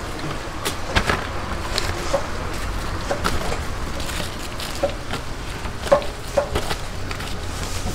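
Gloved hands picking up and stacking crisp fried fritters on paper, making scattered light clicks and crackles over a steady background hiss and low hum.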